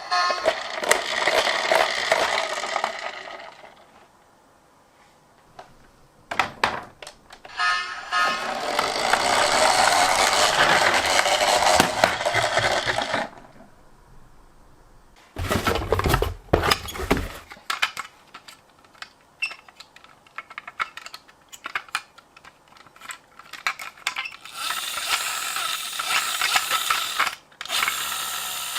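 Toy minicars being handled and run: stretches of rattling, whirring mechanism noise with scattered clicks and clatter, and a short low rumble about halfway through.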